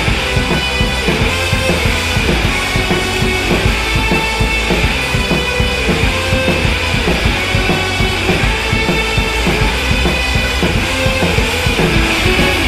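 Rock music with a steady drum-kit beat.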